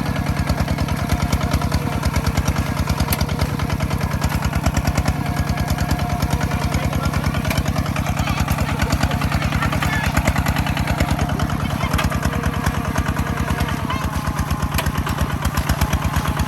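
Farm machine engine running steadily, with a fast, even beat of firing pulses.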